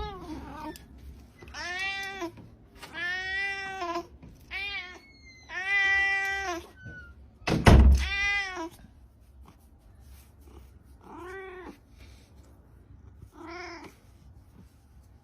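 A cat meowing again and again, about seven drawn-out meows that come further apart and fainter towards the end, with one loud thump about eight seconds in.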